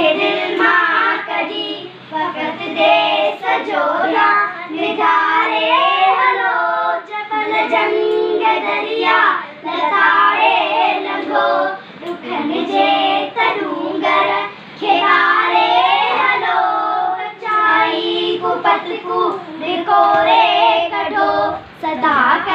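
A group of young girls singing a song together, in phrases a few seconds long with brief pauses between them.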